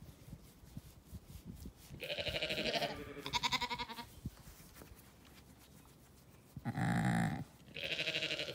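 Zwartbles sheep bleating: four calls, two close together about two seconds in, the second of them wavering, and two more near the end.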